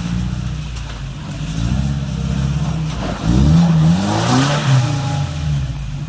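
Toyota Tacoma's 3RZ four-cylinder engine running steadily at low revs as the truck crawls over wet rock. About three seconds in it is revved up and down several times as the front end drops down a ledge.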